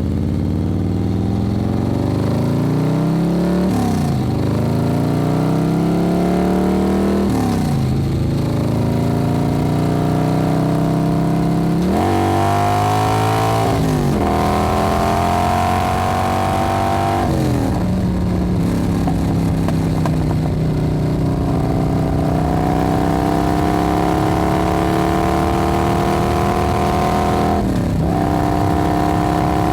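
Motorcycle engine being ridden and accelerated: the revs climb steadily, then drop sharply at each gear change, about five times.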